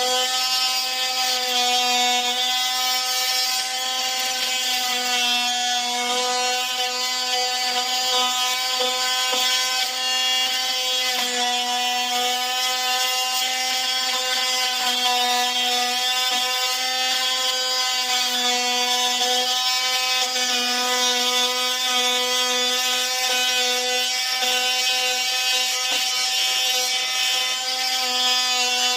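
A power tool's motor running continuously with a steady, high whine that barely changes pitch, as it works on drywall.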